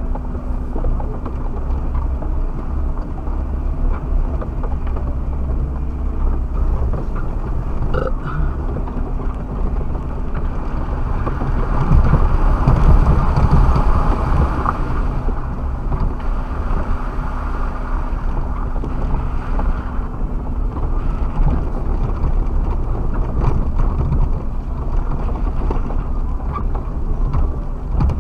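Suzuki Jimny driving off-road, picked up by a dashcam: a steady low engine and drivetrain rumble with a faint constant hum, growing louder for a few seconds about halfway through.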